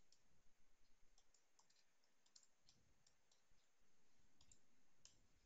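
Faint typing on a computer keyboard: light, irregular key clicks.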